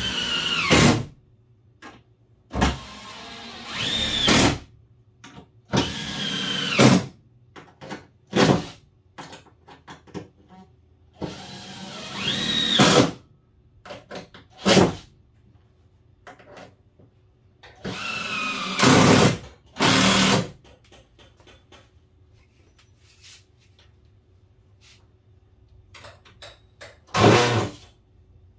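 Cordless drill driving screws into a wooden countertop in a series of short bursts with pauses between. The motor whine rises and falls in pitch as each screw is run in.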